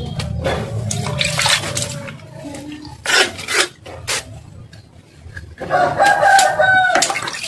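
A rooster crowing once, a long held call near the end, over short scraping and knocking sounds of a fish being handled on a wooden chopping block.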